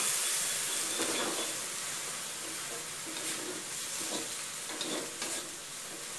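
A stir-fry sizzling in a metal wok while a wooden spatula scrapes and tosses the food, with irregular scrapes over a steady hiss.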